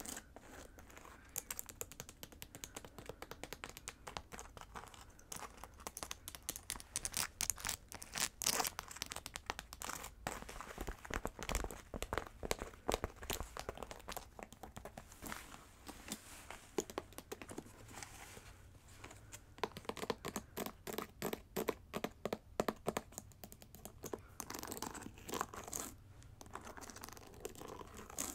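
Long acrylic nails tapping quickly on a jewelled, embroidered fabric boot held close to the microphone, in dense runs of sharp clicks.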